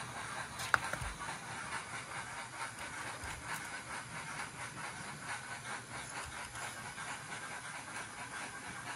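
Sound decoder in an Nn3 model steam locomotive playing steam-locomotive sounds through its tiny speaker: a steady hiss with a soft, regular chuff as the model creeps slowly along. One sharp click a little under a second in.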